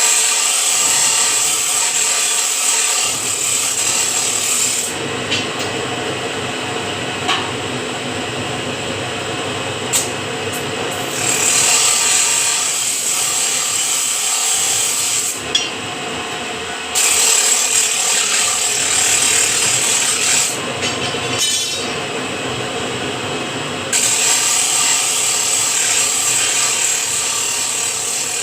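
Power machine working steel square bar: steady rubbing, sawing-like mechanical noise that swells into louder hissing stretches about four times.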